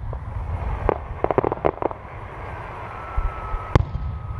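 Aerial fireworks shells bursting: a sharp pop about a second in, a quick run of crackles, then one loud bang near the end.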